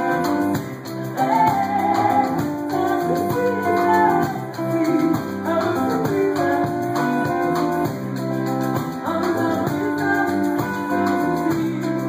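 Live band playing a song with electric guitar, a small acoustic guitar, electric bass and drums, with a woman's voice singing the melody.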